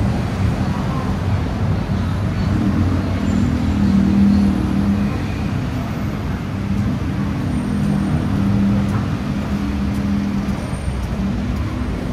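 Busy city road traffic: motor vehicles running on a nearby road, giving a steady low engine drone.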